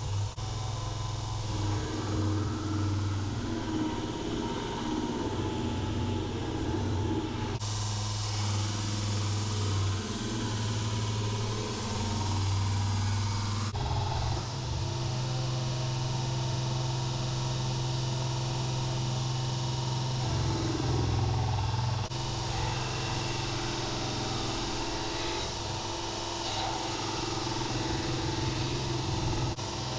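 Electric belt sander running and grinding a steel rebar knife blank, cleaning up its profile: a steady motor hum under a hissing grind. The sound changes abruptly several times, as between separate takes.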